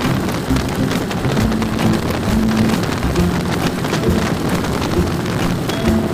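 Steady rushing wind and road noise from a moving vehicle, full of fine crackle, with faint background music notes over it.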